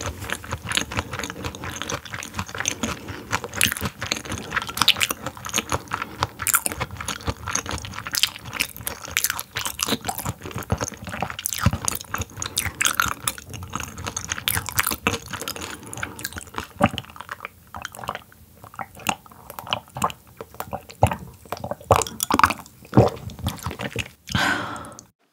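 Close-up chewing and crunching of whole, partly frozen raw silver pomfret (butterfish) sashimi, a dense run of crisp crackles that thins out over the last several seconds. The fish is still half-frozen and icy cold.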